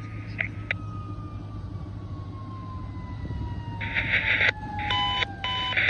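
A distant fire apparatus siren sounding one long wail that falls slowly in pitch, over steady road-traffic hum. Near the end come three short bursts of radio-scanner static and tones.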